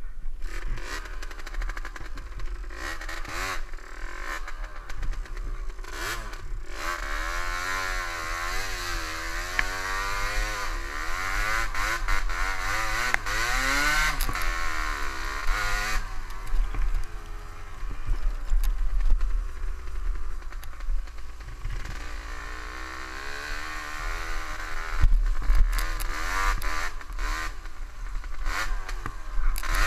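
Kawasaki KDX125 two-stroke single-cylinder enduro engine under way, revving up and down as the bike is ridden. Its pitch climbs to its highest about halfway through, then drops sharply, with occasional knocks and rattles from the rough ground.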